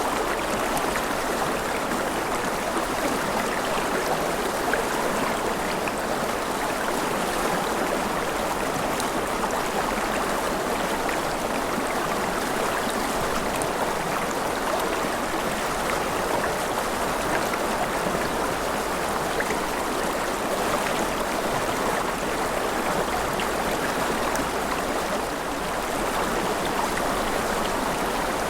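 Steady, even hiss of gentle rain falling, with faint scattered drop ticks.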